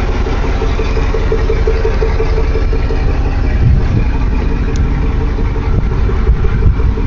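2004 Chevrolet Avalanche's V8 engine idling steadily.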